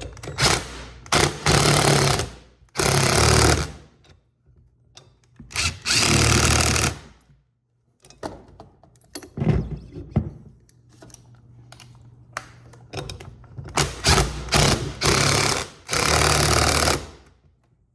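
Impact wrench run in repeated short bursts, about eight times with pauses between, tightening a set of bolts one after another.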